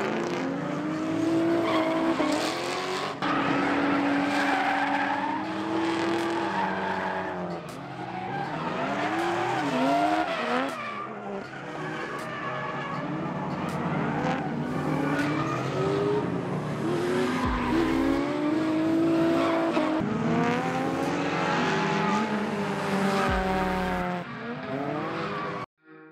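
Two drift cars sliding in tandem, engines revving up and down again and again with tyres squealing and skidding as they hold the slide. The sound cuts off abruptly near the end.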